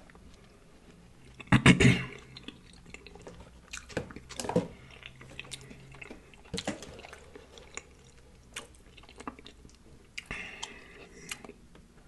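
A person chewing with the mouth close to the microphone, with scattered wet mouth clicks and a louder burst about two seconds in.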